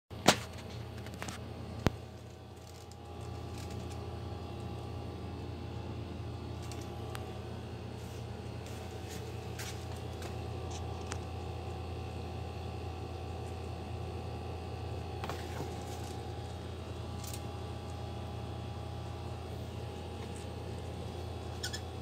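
Lakewood box fan running steadily: a low motor hum with the even rush of air from the blades. A couple of sharp clicks sound in the first two seconds.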